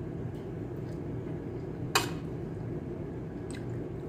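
A person eating soup with a metal spoon: quiet chewing over a steady low hum, with one sharp clink of the spoon about two seconds in and a couple of fainter clicks.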